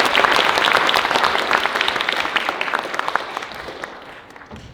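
Audience applauding, with dense clapping that thins out and fades away over the last second or two.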